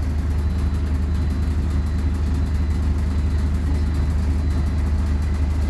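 PAZ 320414 city bus engine running steadily, heard from inside the passenger cabin as a deep, even hum with a light haze of road and cabin noise.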